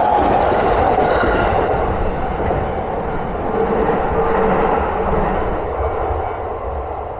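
Electric commuter train passing close by, a loud steady rush of wheel and track noise that slowly eases off toward the end.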